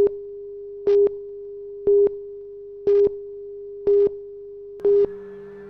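Electronic beeping from a synth song intro: a steady tone with a short, louder beep about once a second, like a phone busy signal. Near the end, further synth tones join in.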